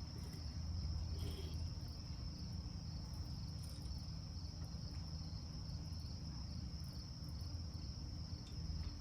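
Crickets chirping in a steady, continuous high trill, over a low background rumble.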